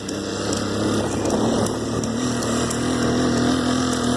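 Honda Tornado 250's single-cylinder four-stroke engine running under load as it climbs with a passenger aboard. Its pitch rises slightly about a second in and then holds steady.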